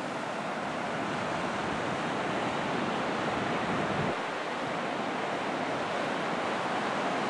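Ocean surf washing onto a sandy beach, a steady noise of breaking waves that slowly grows louder.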